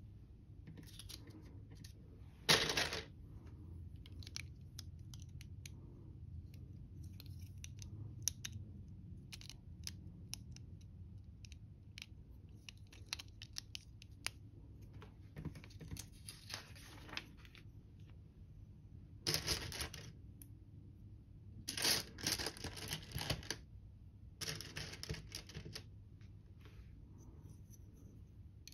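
LEGO bricks being handled and pressed together: small plastic clicks and scraping in short scattered bursts, the loudest about two and a half seconds in and again around twenty and twenty-two seconds in.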